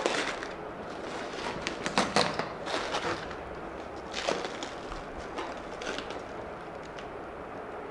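Plastic shrink wrap on a packaged tripod box crackling and rustling as hands pull and tear at it. Sharp crackles come about two, three and four seconds in, then softer rustling.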